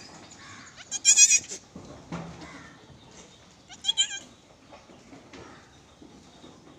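Newborn goat kid bleating twice, high-pitched and wavering: a longer call about a second in and a shorter one about four seconds in.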